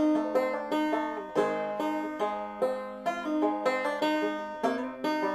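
Plucked-string instrumental music, banjo-like: a picked melody of quick notes that each ring and fade.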